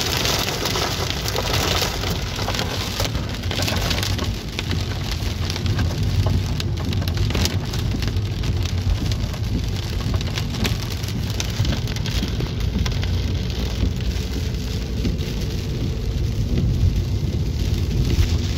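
Raindrops hitting a car's windshield and body, heard from inside the cabin as a steady patter of small ticks, over the constant low rumble of the car driving on a wet road.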